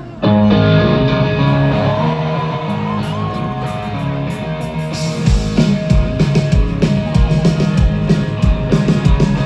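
Live rock band starting a song: sustained guitar chords ring out suddenly, and about five seconds in the drums come in with a steady kick-drum beat.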